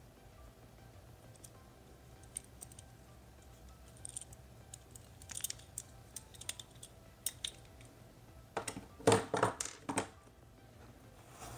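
Light clicks and taps of a small metal mini tripod being handled, its legs and screw-mount head clicking. A short clatter of louder knocks comes about nine seconds in as it is set down on the table.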